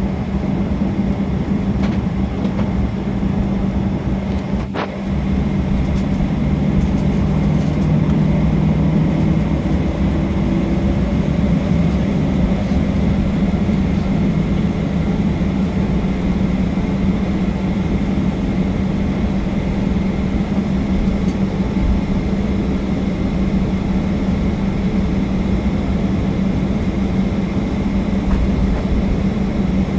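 Cabin noise of a Boeing 737-800 taxiing after landing: its CFM56-7B turbofans at idle give a steady hum with a low tone. A single click about five seconds in.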